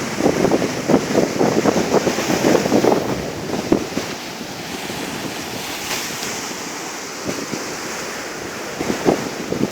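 Sea surf breaking and washing in, loudest and choppiest in the first three and a half seconds, then steadier. Strong wind buffets the microphone throughout.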